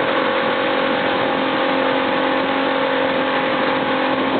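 Boat engine running at a steady speed, a constant drone under a wash of wind and water noise.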